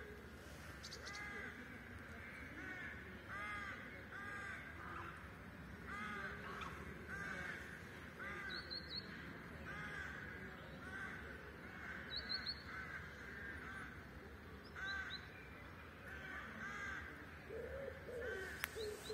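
Crows cawing over and over in a steady run of short harsh calls, with a few brief high chirps from a small bird. Near the end a pigeon starts cooing.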